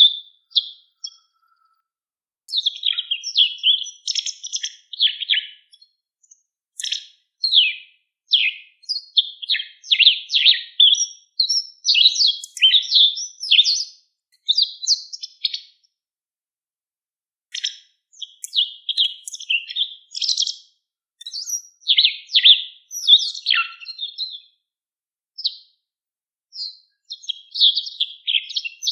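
White wagtail of the black-backed lugens race twittering: runs of quick, high chirps, broken by two short pauses, one near the start and one a little past the middle.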